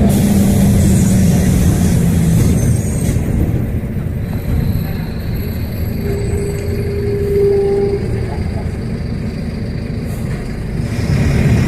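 Street traffic: a motor vehicle's engine rumbling, loud with a steady hum for the first two or three seconds, then fading to a quieter low rumble, with a brief steady tone about six seconds in.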